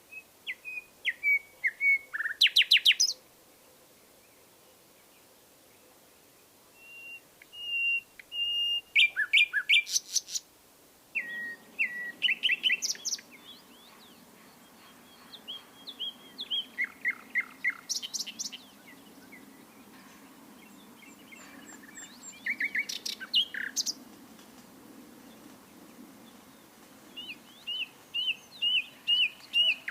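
Common nightingale singing in separate phrases of a few seconds each, about six of them, broken by pauses. The phrases mix rapid repeated notes, clear held whistles and loud fast trills.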